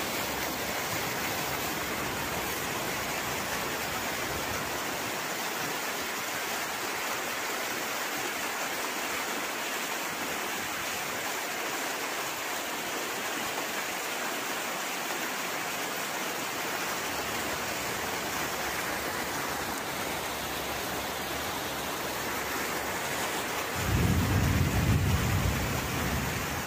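Flash floodwater rushing through a street in a steady, even rush of water noise, with heavy rain. About 24 seconds in, a deeper rumble swells in and stays louder until the end.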